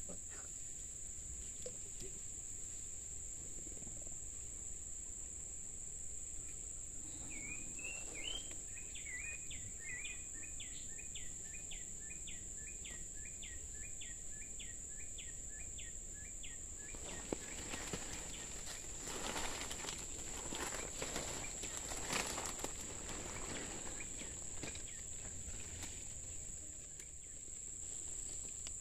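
Steady high-pitched drone of insects, with a bird calling a run of short repeated notes, about two a second, for roughly ten seconds near the middle. Later come the rustling and crackling of leaves and undergrowth.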